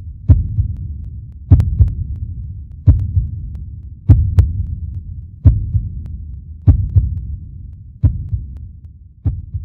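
Heartbeat sound effect: deep thumps about every 1.3 seconds, some in lub-dub pairs, each trailing off in a low rumble.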